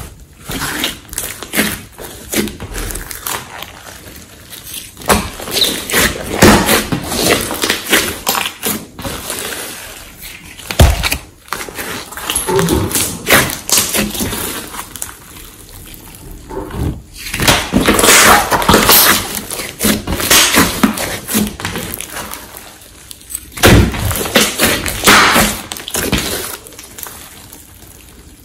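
Hands squishing, stretching and pressing a large mass of clay-mixed glossy slime against a tabletop: irregular wet squelches, crackles and pops of trapped air, with thuds as it is pushed down.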